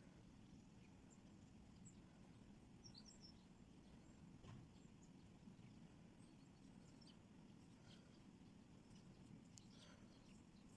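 Near silence: faint steady background rumble with scattered short, faint bird chirps.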